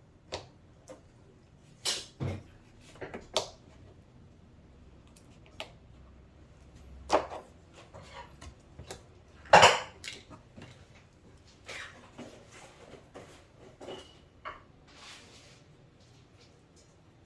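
Intermittent clicks, taps and knocks of hard objects being handled and set down, with the loudest knock about nine and a half seconds in.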